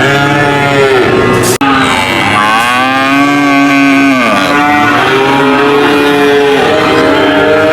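Cattle mooing: a series of long, loud moos rising and falling in pitch, with a brief break about one and a half seconds in.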